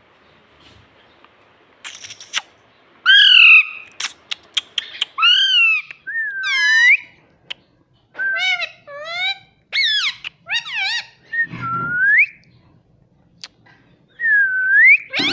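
Indian ringneck parrot whistling and chirping: a string of short whistled calls that glide up and down, several ending in a rising sweep, with brief pauses between them.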